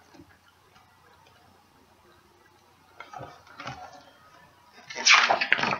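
Pages of a large picture book being handled and turned: quiet at first, faint rustling about three seconds in, then a loud paper swish near the end.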